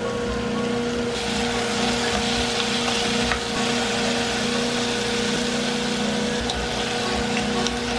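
A steady mechanical hum with hiss, like a small electric appliance motor running, with a few faint clicks.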